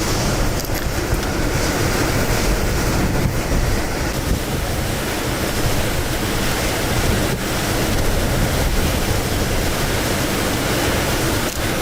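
Steady, loud rush of strong storm wind buffeting the microphone.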